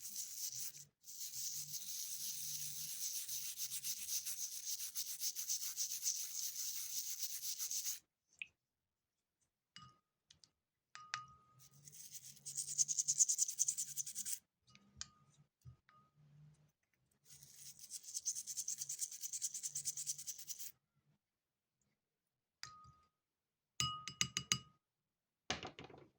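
Rapid scrubbing strokes on an old copper coin during cleaning, in three spells. Between them are a few short, light metallic clinks.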